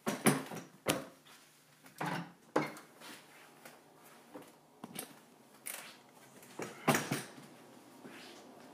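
Handling noise of a hand-held camera being carried through a house: irregular knocks, clicks and bumps, the loudest just after the start and again about seven seconds in.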